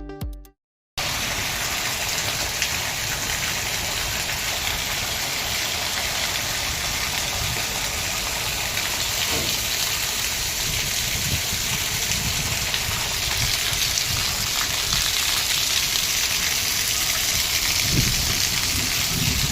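Heavy rain falling steadily, driven by strong wind, with uneven low rumbles of gusts underneath.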